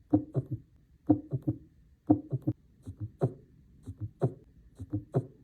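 Heart sounds as heard through a stethoscope: a gallop rhythm, with an extra abnormal heart sound (S3 or S4) beside the normal lub-dub, giving groups of three low thuds about once a second.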